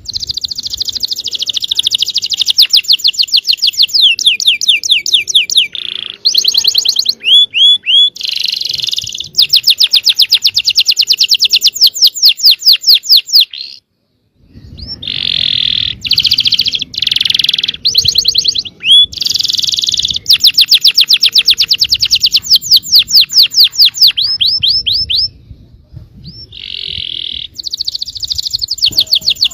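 Yellow domestic canary singing a fast, dense song of high rolled trills and rapidly repeated notes in long phrases, with a brief pause about halfway through before the song resumes.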